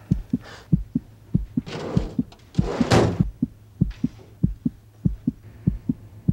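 Heartbeat sound effect on a tense film soundtrack: steady low thumps, about three a second, over a low hum. Two louder rustling swishes come about two and three seconds in.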